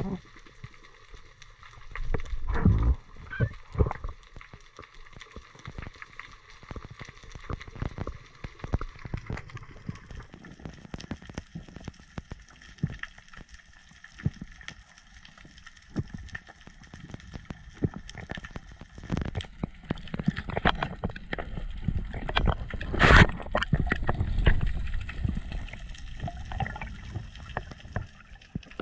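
Underwater sound through an action camera's waterproof housing: low rushes of water moving against the housing, with many small clicks and crackles throughout and one sharp knock about 23 seconds in.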